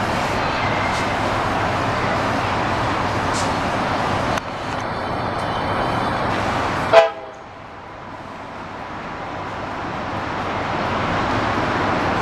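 Steady hum of city traffic far below, with a short, loud horn toot about seven seconds in. Right after it the background noise drops away and slowly builds back up.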